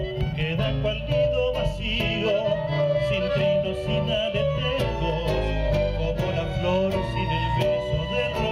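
Live chamamé ensemble playing an instrumental passage: violins carry a wavering melody over accordion, strummed guitars and a low bass line.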